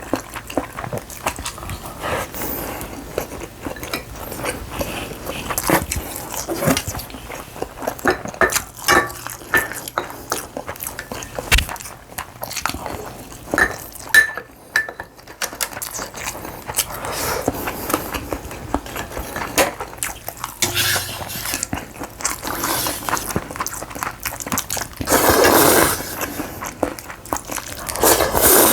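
Close-miked eating: chewing and crunching, with utensils clicking against a bowl. Two louder slurps come near the end, of noodles or anchovy broth.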